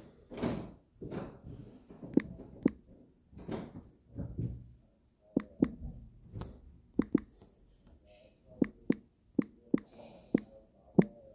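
Fingers tapping on a smartphone's touchscreen keyboard while typing in a serial number: a run of short, irregular clicks, sometimes two or three in quick succession, with pauses between.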